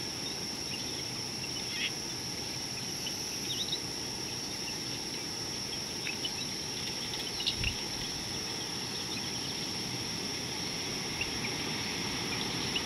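Daytime bush ambience: a steady high-pitched drone with scattered short bird chirps, and a single soft low thump about seven and a half seconds in.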